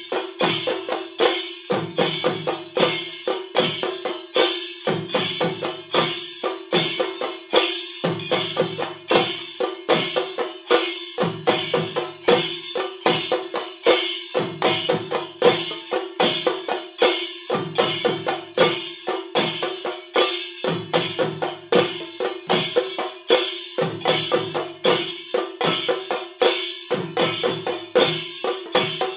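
Chenda melam: a group of Kerala chenda drums beaten with sticks in a fast, dense rhythm, with a deeper run of beats coming back about every two seconds and a steady ringing tone underneath.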